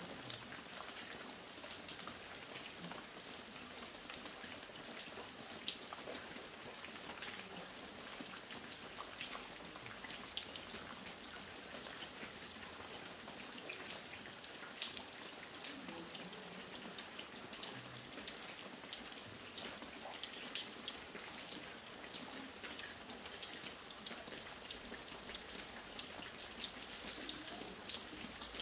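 Light rain falling steadily: a dense patter of fine drops, with a few louder single drops standing out now and then.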